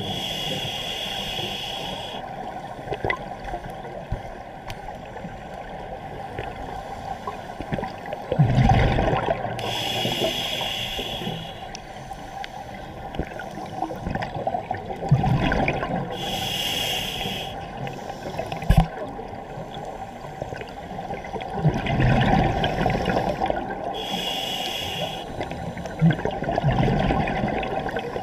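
Scuba diver breathing through a regulator underwater: a hissing inhale about every seven seconds, four times, each followed by a gurgling rush of exhaled bubbles.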